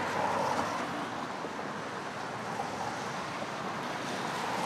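Steady street traffic noise, an even hiss that swells slightly near the start and again near the end.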